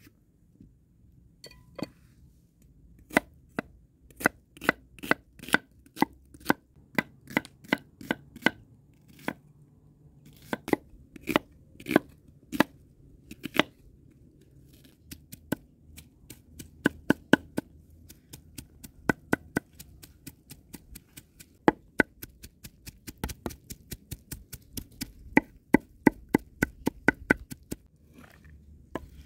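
Kitchen knife chopping onions on a wooden cutting board: a run of sharp knocks, about two to four a second, with a brief pause about halfway.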